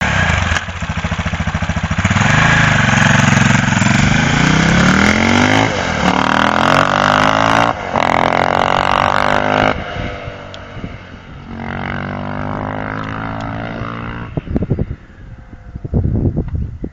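KTM 625 SMC's single-cylinder four-stroke engine revving hard, its pitch climbing and falling repeatedly. After about ten seconds it drops back to a lower, steadier note, then gives a few short throttle blips near the end.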